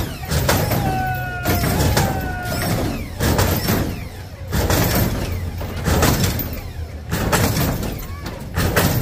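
Lowrider hydraulics being worked in a hop: a run of loud, repeated surges about once a second, with a whining tone falling away in the first seconds and crowd voices under it.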